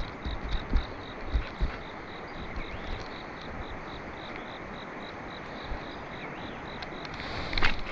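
An insect chirping steadily, a high note repeating about four times a second, over a steady outdoor hiss. There are a few low knocks in the first two seconds and a louder rustle near the end.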